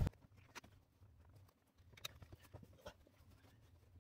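Faint, scattered light clicks and taps as a flat-blade screwdriver is handled and set against the plastic cover on a power seat's floor rail.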